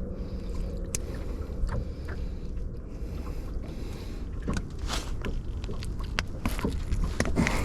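Low steady rumble aboard a small fishing boat, with scattered knocks and rattles that grow busier from about halfway through as a circle hook is worked out of a blue catfish's mouth.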